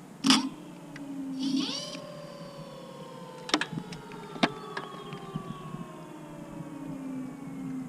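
Scooter's rear wheel spun up unloaded on the throttle: a sharp click, then a whine that rises quickly about a second and a half in and slowly falls as the wheel coasts down, with a couple of clicks along the way. With no load on the wheel there is no grinding noise.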